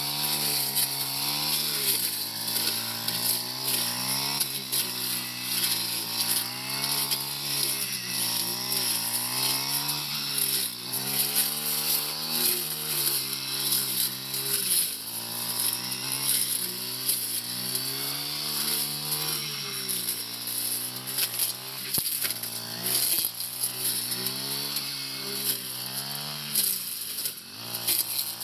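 Four-stroke brush cutter engine running at high speed while cutting thick brush grass, its pitch repeatedly sagging and recovering every second or two as the cutter bites into the growth and is swung clear.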